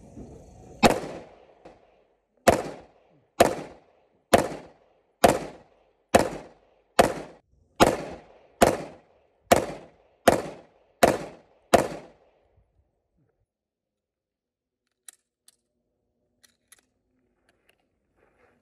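Pistol fired thirteen times in a continuous string: one shot, a short pause, then twelve more at a steady pace of a little over one a second, each with a brief ring-out. A few faint clicks follow near the end.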